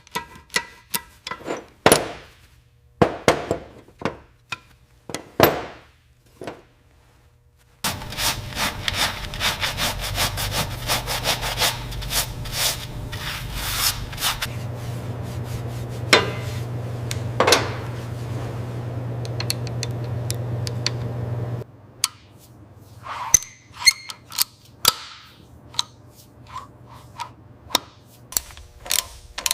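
Workshop tool sounds: scattered knocks and taps, then a steady power-tool-like rubbing run with a low hum for about fourteen seconds that stops suddenly, followed by more taps and clicks.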